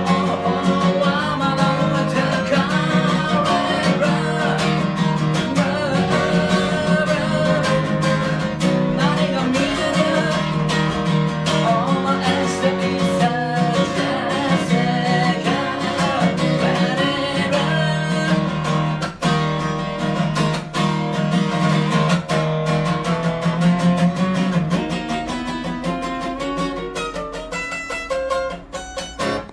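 Man singing to his own strummed acoustic guitar. In the last few seconds the voice drops out and the guitar plays on alone.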